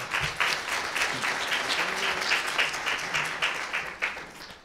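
Audience applauding: many hands clapping together, dying away near the end.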